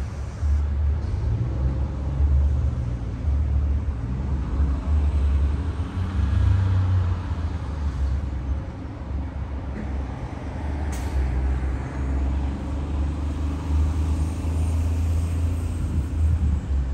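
Road traffic passing: cars and a transit bus on the street by the crossing, over a steady low rumble, with one sharp click about eleven seconds in.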